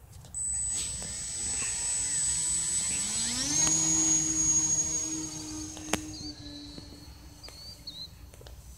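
E-flite Timber RC plane's electric motor and propeller whining as the throttle is opened for takeoff. The whine rises in pitch a few seconds in, then holds steady and fades as the plane climbs away.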